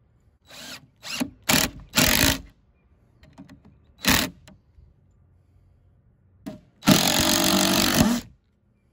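DeWalt cordless drill driving screws through a steel hinge into wood. It runs in several short trigger bursts over the first half, then one steady run of about a second and a half near the end.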